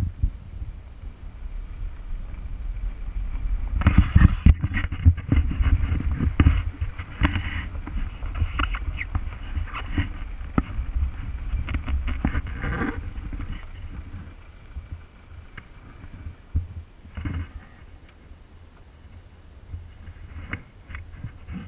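Safari vehicle moving slowly along a dirt road: a low engine rumble with rattles and knocks from the body. It is loudest and most rattly for several seconds near the start, then settles quieter with only occasional clicks.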